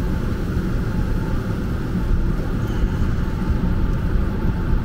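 Steady low rumbling noise with no distinct strokes or tones.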